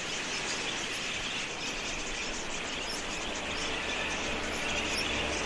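A large flock of wild budgerigars chirping and chattering together in a dense, steady chorus. A low steady hum comes in near the end.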